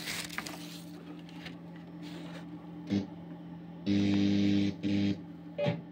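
An aux cable's 3.5 mm jack being plugged into a desktop PC's rear audio port, with handling crackle and a steady low hum from the connected speaker, broken by two loud bursts of buzz as the plug makes contact.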